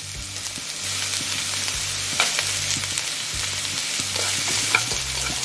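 Vegetables sizzling as they are stir-fried in a pan, with a few sharp clicks of the stirring utensil against the pan.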